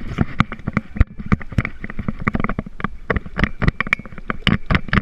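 Rapid, irregular knocks and rattles close to the microphone as a hooked bass is fought and brought aboard a paddleboard. A faint steady high tone runs under them for the first four seconds or so.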